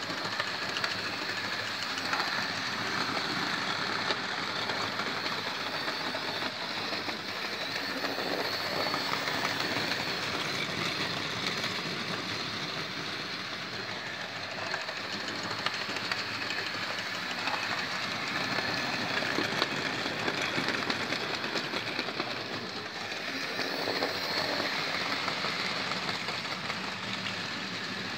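Hornby 0-6-0 model locomotives pulling a rake of wagons around the track: a steady rattling whir with fine clicking of wheels over the rail joints, swelling and fading a little as the train passes.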